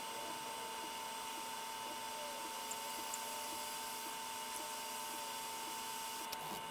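Hot air rework station blowing steadily: an even hiss of airflow with a thin steady whine from its fan.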